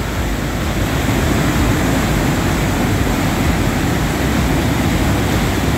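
Rushing water of a waterfall and river: a loud, steady, even noise.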